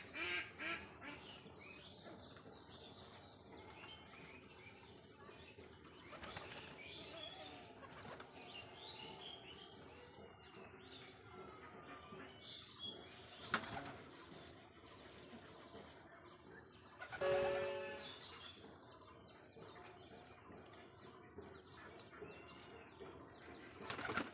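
Domestic pigeons' wings flapping in short flurries as birds fly down from the perch to feed on the floor. There is a sharp tap a little past halfway, and later the loudest sound, a brief call held on two steady pitches.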